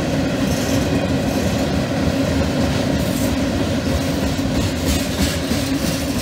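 Freight cars of a CSX mixed freight train rolling past: a continuous rumble of steel wheels on the rails with a clickety-clack over the joints.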